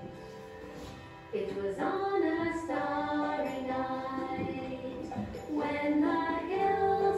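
A Christmas song: a quiet instrumental passage of gentle held notes, then singing comes in over the backing music about a second in and carries on.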